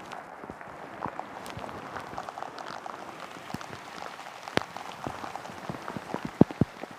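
Rain falling, with scattered individual drops tapping close to the microphone at irregular intervals; a few sharper, louder drop hits stand out near the end.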